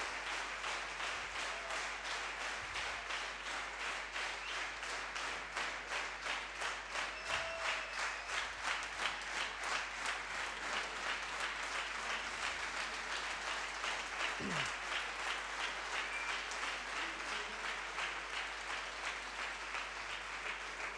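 Audience applauding, a dense patter of many hands. After a few seconds it settles into rhythmic clapping in unison, about three claps a second.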